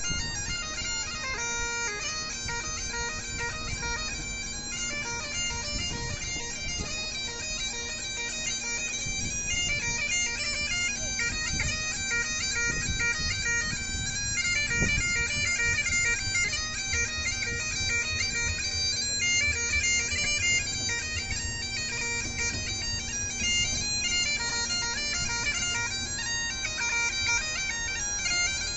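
Great Highland bagpipe played by a street piper: a quick-moving chanter melody over a steady drone.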